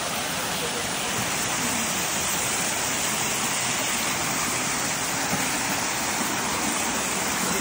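Tiered waterfall rushing steadily over rock ledges into a pool: an even, unbroken hiss of falling water.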